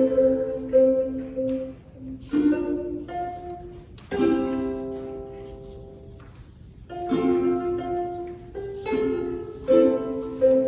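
Ukulele playing slow chords, each plucked and left to ring and fade before the next, with a few single notes between. One chord near the middle rings on for about two seconds.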